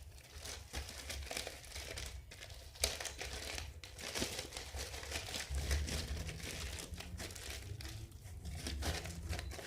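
Irregular crinkling and crackling as dried-out slime that no longer stretches is worked in the hands.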